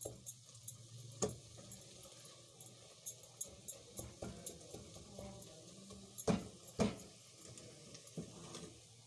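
Silicone spatula scraping and stirring a thick chicken-and-vegetable filling in an enamel pot, with light clicks and two louder knocks about six and a half and seven seconds in, over a steady low hum.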